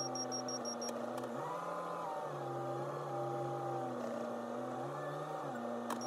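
JCB backhoe loader's diesel engine running, heard from the cab. Its revs rise and fall several times as the machine drives with a loaded pallet fork. A rapid high beeping stops about a second in.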